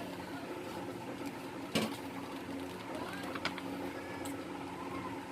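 Low steady hum, with one sharp click about two seconds in and a couple of fainter clicks later.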